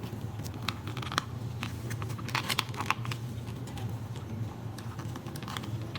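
Plastic wiring connectors and cables on an electric scooter being handled, pulled apart and pushed back together, giving irregular small clicks and rustles over a low steady hum.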